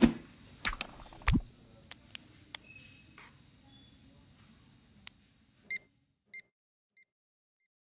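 Logo-animation sound effects: a few sharp clicks and a low rising swoop in the first second and a half, then scattered ticks. Near the end a short electronic beep sounds and repeats three times as a fading echo.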